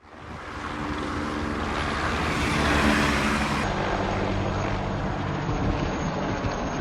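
Motor engine noise with road or wind rush, swelling to a peak about three seconds in and then holding steady.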